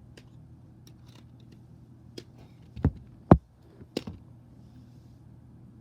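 A plastic puzzle-ball fidget toy being handled: scattered light clicks and taps, two dull thumps just under three seconds in, and another click about a second later.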